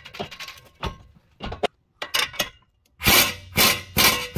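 Small metallic clinks as a castle nut is threaded by hand onto a tie rod end's ball-joint stud. About three seconds in, a socket on a long extension drives the nut down in loud repeated bursts, about two a second.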